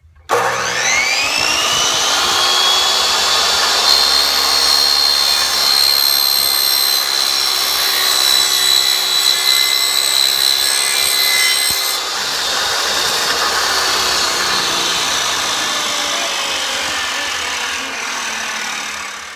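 Electric miter saw motor whining up to speed and running steadily at a high whine, likely cutting the wooden boards. The sound drops a little about twelve seconds in and stops abruptly at the end.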